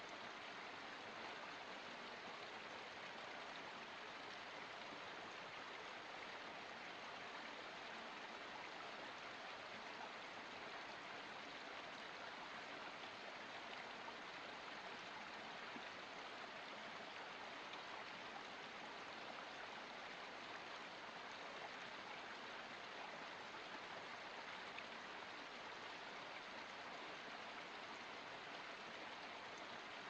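Small creek flowing and splashing down over rocks: a steady, even rush of water.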